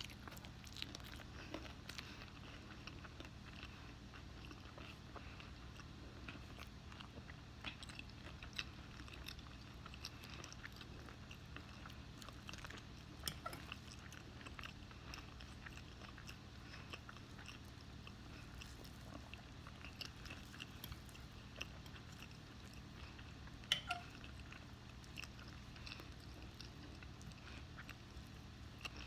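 Faint chewing and biting as a person eats fried chicken and waffles, with scattered small mouth clicks over a steady low hum and one sharper click late on.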